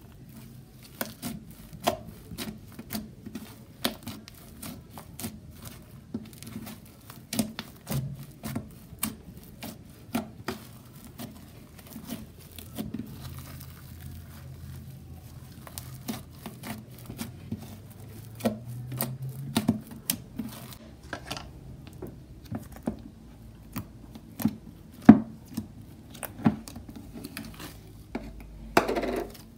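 Slime being stretched and squeezed by hand, giving off irregular crackling pops and clicks, with a faint steady low hum underneath.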